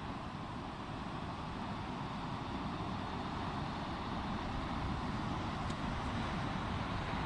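Steady rushing noise of sea surf and wind, with a low rumble, growing slightly louder.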